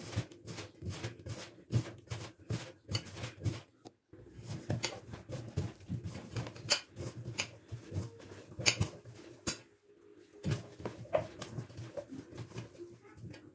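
A hand squeezing and kneading damp chopped beetroot with gram flour in a stainless steel bowl: irregular soft squelches and crackles, about three a second, with brief pauses about four seconds in and again near ten seconds.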